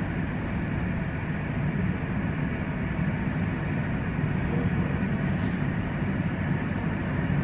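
Steady low rumbling background noise with no distinct events, typical of the inside of a moving vehicle or a busy terminal's air handling.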